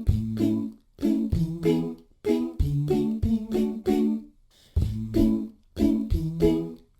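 All-vocal background music: layered humming voices with percussive hits, a short phrase repeating about every second and a bit.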